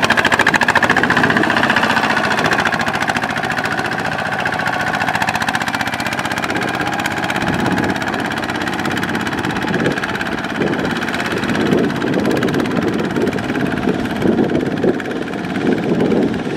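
Single-cylinder diesel engine of a two-wheel walking tractor running steadily with a rapid pulse, pulling a loaded trailer through mud and stubble, with uneven surges in the low sound from about halfway through.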